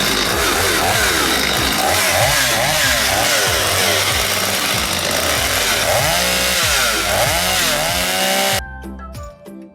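STIHL two-stroke chainsaw engine running at high revs, its pitch rising and falling again and again as the throttle is worked. It cuts off abruptly near the end, leaving a light chiming tune.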